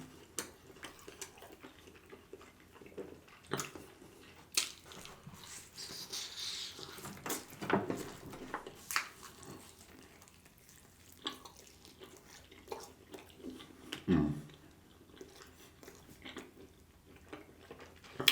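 Close-miked chewing of barbecued beef rib meat: soft, wet mouth clicks and smacks scattered through, with a few louder ones.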